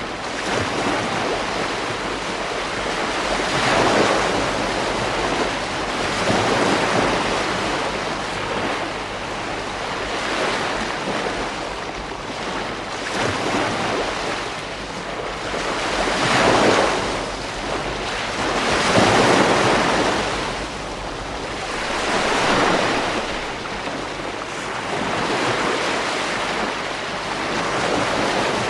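Ocean waves breaking on a beach, the surf swelling and fading every few seconds.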